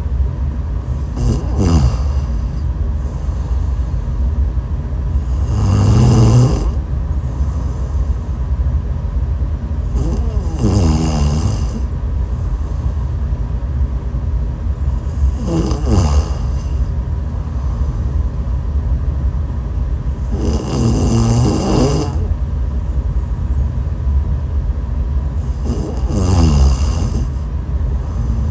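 A person snoring, six snores in slow, regular rhythm about five seconds apart, several sliding down in pitch, over a steady low rumble.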